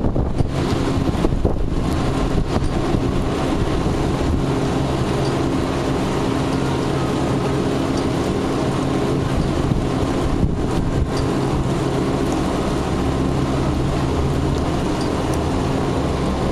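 Steady low hum of running machinery, with wind gusting over the microphone.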